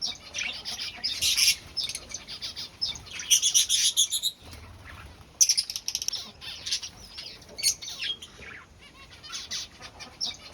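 Cockatiel chicks begging with bursts of rapid, high-pitched chirping as a parent feeds them.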